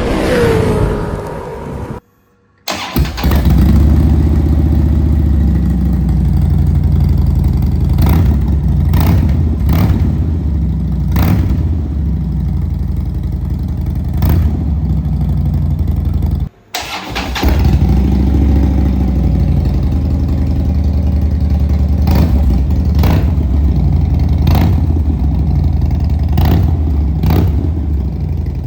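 Harley-Davidson V-twin motorcycle engine through an aftermarket Pazoma exhaust, idling with a series of quick throttle blips. The sound cuts out briefly about two seconds in and again just past the middle.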